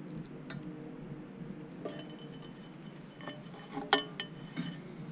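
A few light metallic clicks and clinks as hands handle the steel launch rail and the igniter clip leads at the base of a high-power rocket. The sharpest click comes about four seconds in.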